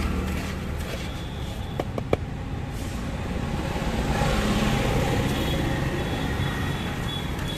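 Steady street traffic noise, swelling about four to five seconds in as a vehicle passes. Two sharp taps come about two seconds in.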